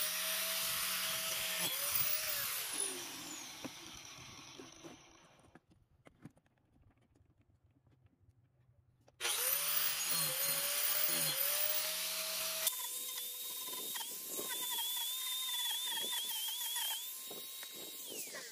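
DeWalt angle grinder with a carving disc grinding into wood, its motor whine dipping and recovering as the disc bites. It winds down and goes quiet about five seconds in, then starts again at full speed about nine seconds in. From about thirteen seconds in the whine is steadier and wavers around one pitch.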